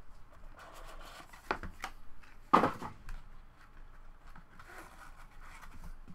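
Hands opening and handling a cardboard trading-card box and a hard plastic card case: rustling and light clicks, with one sharp knock about two and a half seconds in.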